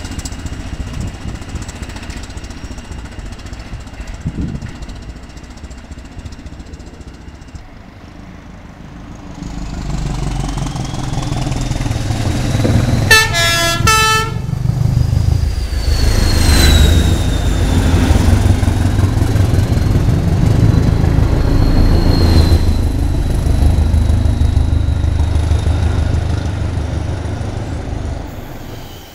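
A train approaching and passing, with a short horn blast about thirteen seconds in. Its heavy rumble builds from about ten seconds in, carrying a high whine that rises as it comes near, and stays loud until it drops away near the end.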